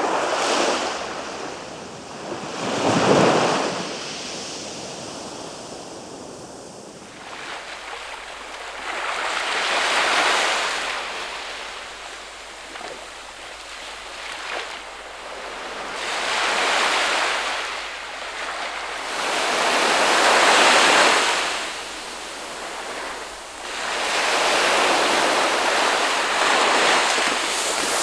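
Ocean surf: waves breaking and washing in, rising and falling in slow swells every few seconds.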